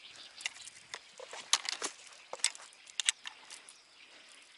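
Irregular light clicks and taps of fishing gear being handled in an inflatable boat, a few sharper ticks between about one and a half and three seconds in.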